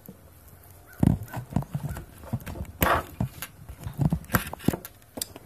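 Hands fumbling with a handheld phone and with thin copper wire leads as they are pulled out of a battery pack's plastic connector: an irregular string of knocks, taps and rubbing that begins about a second in.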